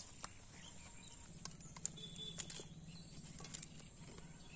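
Faint rural outdoor ambience: a steady low hum that sets in about a second and a half in, a constant thin high whine, and a few faint clicks.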